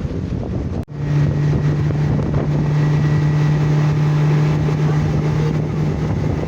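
An engine running steadily with a low, even hum, with wind on the microphone; it breaks off for an instant about a second in.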